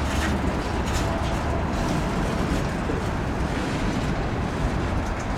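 Freight train cars rolling past a grade crossing: a steady rumble of wheels on rail, with a few light clicks.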